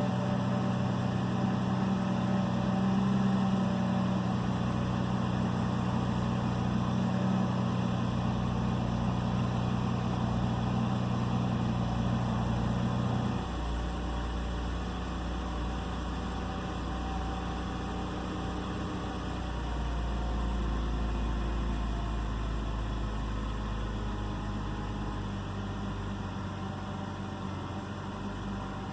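2009 BMW 328i xDrive's straight-six engine idling, the idle note dropping abruptly to a lower, deeper hum about halfway through and staying there. The car has a misfire and idle problem.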